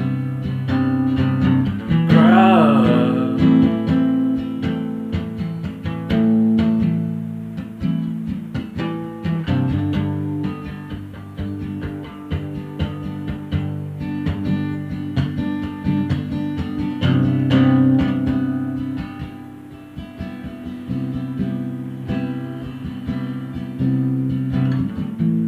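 Steel-string acoustic guitar strummed in chords, notes ringing between frequent strokes. About two seconds in, a short wavering sung note rises over the guitar.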